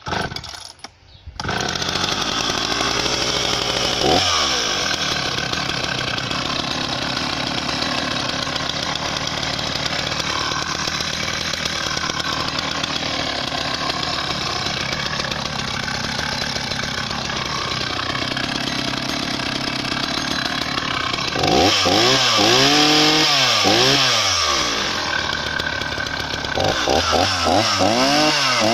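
Husqvarna 480 CD two-stroke chainsaw, with its original engine, starting up and running steadily at idle after about a second and a half, with a quick blip of the throttle about four seconds in. Near the end it is revved up and down several times, then held at high revs.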